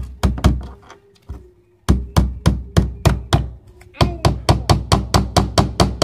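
Claw hammer driving small nails into a thin wooden board. A few quick strikes, a pause of about a second, then a steady run of strikes at about four a second, quickening to about five a second in the second half.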